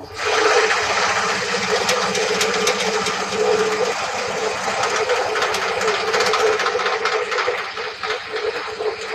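Table saw cutting wood: a steady motor tone under a dense rasping noise with many small ticks, starting suddenly.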